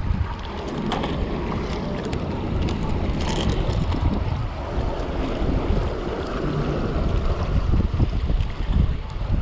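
Wind buffeting the microphone over the wash of small sea waves against rocks, with a few light clicks from handling in the first few seconds.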